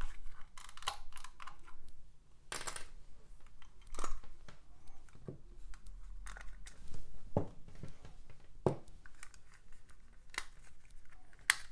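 A black plastic Amiga mouse being opened up by hand, its single case screw undone with a screwdriver: scattered clicks, scrapes and rustles of plastic and metal.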